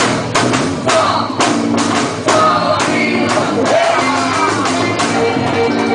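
Loud quadrilha junina festival music, with a run of sharp percussive hits in the first two seconds.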